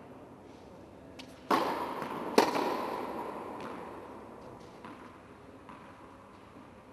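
Tennis ball impacts in a tennis rally on an indoor hard court: a sharp pop about a second and a half in and a louder crack just under a second later, each ringing on in the hall's echo. A few faint ticks follow.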